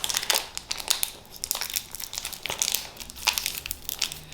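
Foil Pokémon card booster pack crinkling in a child's hands as the child works at tearing it open, with a busy run of irregular crackles.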